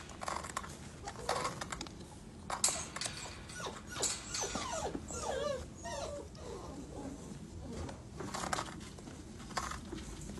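Puppies whimpering in short wavering high calls, mostly in the middle, amid scrabbling and knocking as they clamber over one another into a plastic tub.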